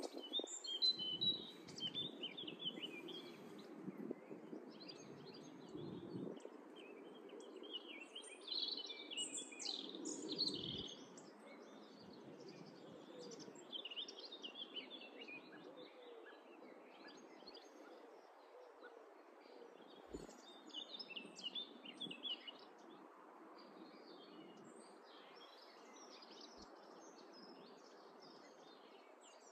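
Small songbirds chirping and singing in scattered short phrases, busiest in the first half, over a steady outdoor background hum with a few low rumbles in the first ten seconds.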